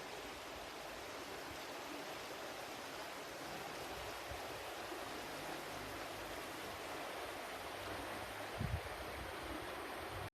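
Water flowing steadily in a stream, an even unbroken wash of sound, with a brief low thump near the end.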